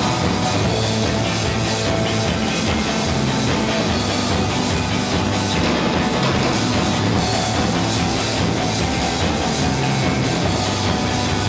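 Live rock band playing a song at full volume, with a drum kit driving it.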